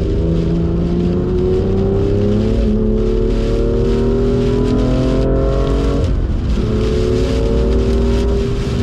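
BMW M2's turbocharged straight-six accelerating hard, its pitch climbing and dropping back twice, about 3 s and 6 s in, as it shifts up, over a steady hiss of rain and tyre spray.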